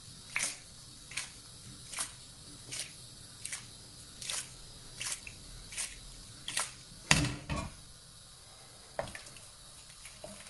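Wooden spatula stirring pasta in a pan with a little starchy cooking water: a wet scrape and squish about every three quarters of a second, the loudest about seven seconds in, then a pause and one last stroke near the nine-second mark.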